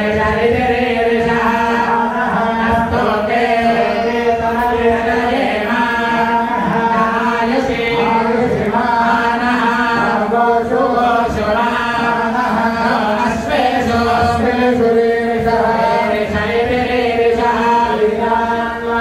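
A group of Hindu priests chanting ritual mantras together in unison, a continuous recitation of many male voices.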